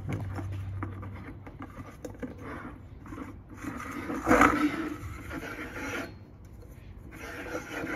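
Intake silencer being screwed by hand onto the threaded port of an air compressor's cylinder head: threads and housing scraping and rubbing as it turns, with one louder scrape about halfway through.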